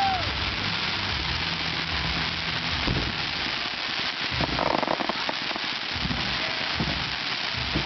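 Fireworks display going off: a dense, continuous stream of pops and bangs from many shells and comets at once, with a louder cluster of bangs about halfway through.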